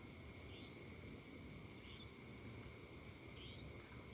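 Faint night insect chorus: a steady high-pitched buzz with short rising chirps about every second and a half and a quick triple chirp about a second in, over a low rumble.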